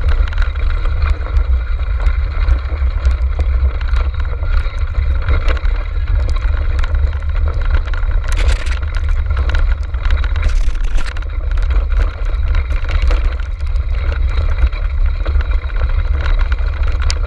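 Steady low rumble of travel and wind noise on a camera riding a dog-racing cart in motion, with scattered rattles and clicks and a couple of brief hissing bursts about halfway through.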